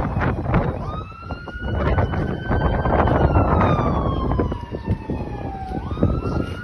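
A siren wailing: its pitch jumps up about a second in, climbs slowly, falls slowly from about three seconds, and jumps up again near the end. Heavy wind rumble on the microphone lies beneath it.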